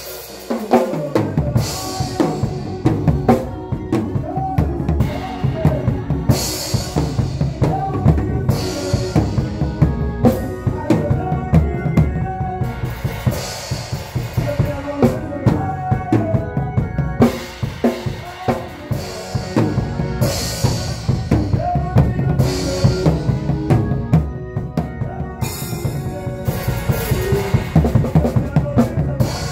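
Acoustic drum kit played with sticks in a steady groove: bass drum and snare under repeated cymbal crashes every second or two.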